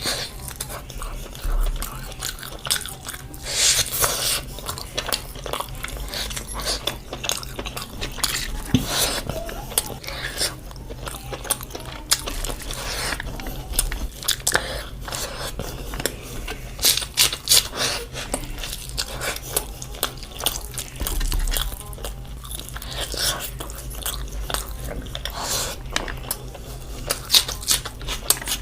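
Close-up eating sounds of biryani: wet chewing and smacking, with many short crunches and bites, recorded close to the microphone.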